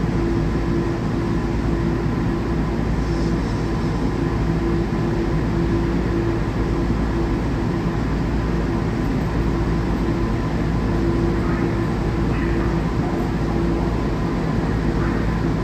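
Steady hum and rumble inside a Newark AirTrain monorail car, with a constant tone running through it.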